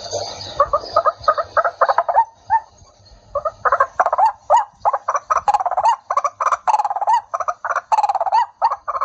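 Recorded white-breasted waterhen (chim cuốc) calls played through a small battery-powered Samsung WS898 bird-lure loudspeaker: a long run of rapidly repeated call notes, denser and louder from about three and a half seconds in. The speaker calls the sound very sharp and warm.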